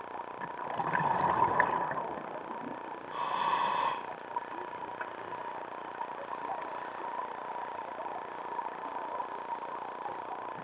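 Underwater scuba-dive sound: a steady hiss with a thin high tone, broken by two bursts of exhaled bubbles from a scuba regulator, one about a second in and another about three seconds in.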